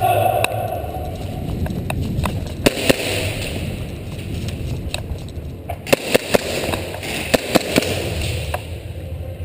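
Airsoft pistol shots, sharp pops in short clusters: two about two and a half seconds in, a quick run of four around six seconds, and three more about a second later, over a steady rustling haze.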